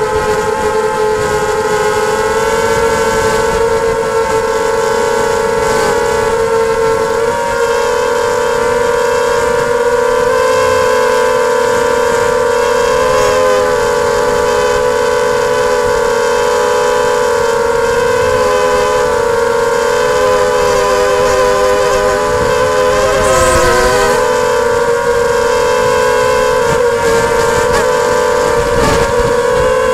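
Multirotor drone's motors and propellers whining steadily, heard from the drone's own camera. The pitch wavers slightly as it flies and dips briefly about 23 seconds in.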